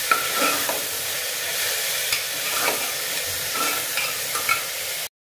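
Sliced onions sizzling in oil in an aluminium pressure cooker, the onions already softened, while a spoon stirs them and scrapes and taps against the pot several times. The sound cuts off abruptly near the end.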